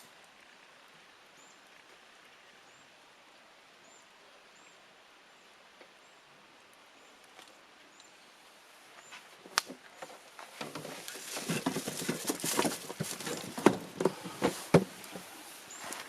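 Burning firewood in a campfire stand: quiet at first with only a faint high chirp repeating about every two-thirds of a second, then from about ten seconds in a dense run of sharp cracks and snaps that grows louder.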